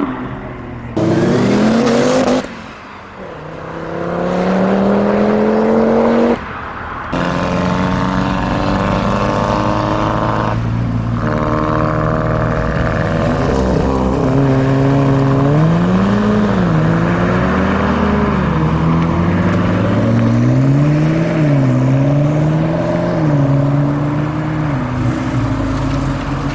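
Performance car engines accelerating hard, the pitch climbing through the revs in several short, abruptly cut bursts. Later one engine is revved up and let fall again and again, about every two seconds.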